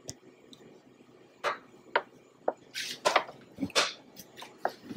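Handling noises: a string of sharp clicks and knocks mixed with short crinkling rustles, about a dozen in all and starting about a second and a half in, as a foil pan and the camera are handled.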